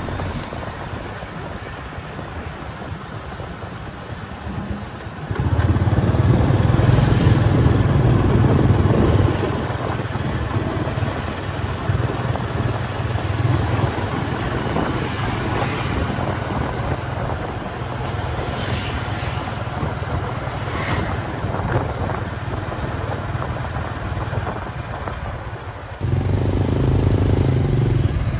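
A Honda Wave S110's small single-cylinder four-stroke engine running as the motorbike is ridden along a street. The sound grows louder about five seconds in and again shortly before the end.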